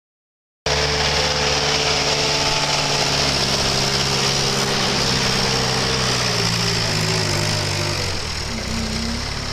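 Truck-mounted forklift's engine running steadily as it drives with a loaded pallet of bagged coal. It cuts in abruptly about a second in, and its pitch eases down in the last few seconds as the machine slows to turn.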